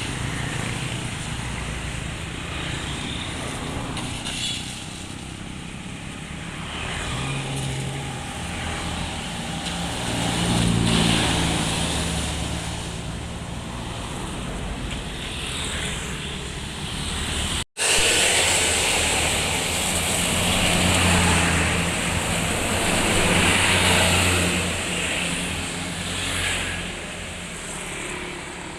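Large diesel buses passing on a road: the engine drone and tyre noise swell and fade as they go by, louder twice in the second half. The sound breaks off for an instant about two-thirds of the way through.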